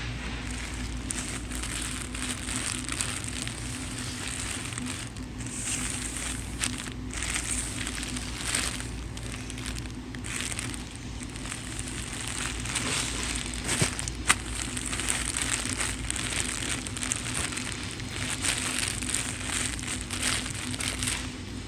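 Continuous crinkling and crackling over a steady low hum, with a sharp click about fourteen seconds in.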